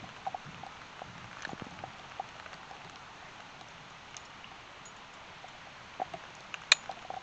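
Scattered light clicks and taps of a plastic T-post extender being worked onto a steel T-post, with one sharp snap near the end as it clips into place.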